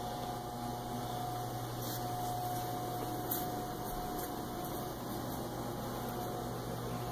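Steady low hum with a faint, thin high whine over it that drops out for about a second about five seconds in: quiet room tone with no distinct event.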